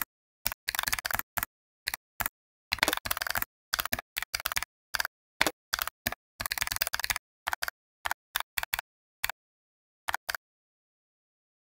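Computer keyboard typing: single key clicks and quick runs of keystrokes, with short pauses of dead silence between them.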